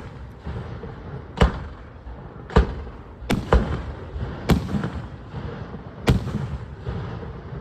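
Aerial fireworks shells bursting: about six sharp bangs spaced roughly a second apart, each trailing off in a rumbling echo.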